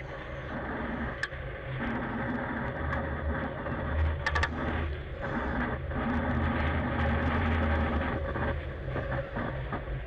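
Steady low rumble of a fishing trawler's engine and machinery under a noisy hiss, with a few sharp clicks about a second in and again around four seconds in.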